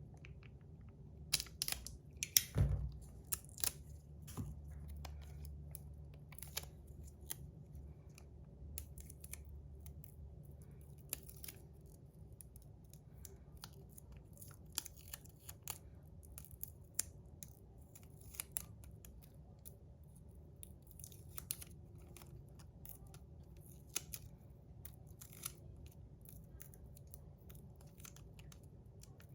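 Faint handling sounds of material being cut, torn and pressed inside a 3D-printed fidget slider to hold down a rattle: scattered small clicks, snips and rustles, with a cluster of louder clicks about two to four seconds in.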